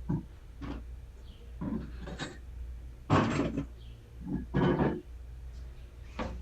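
A truck wheel and tire being handled in a tire shop: a series of irregular knocks and clunks, the two loudest and longest a little past the middle, over a steady low hum.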